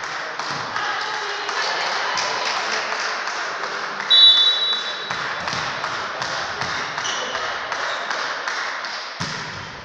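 Referee's whistle blowing once, a short shrill blast about four seconds in, signalling the serve. Around it, a haze of players' voices and scattered taps, with a thump near the end.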